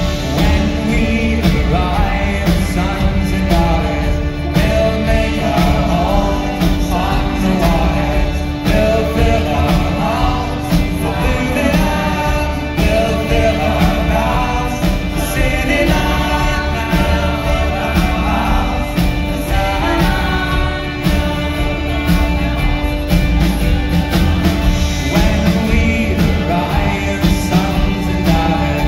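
Live folk-rock band playing: singing over acoustic guitar, upright bass and drums, with a steady held drone note underneath.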